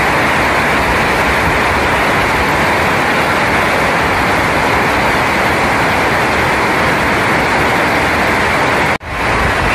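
Heavy rain falling steadily, a dense even hiss. About nine seconds in it cuts out for an instant and comes straight back.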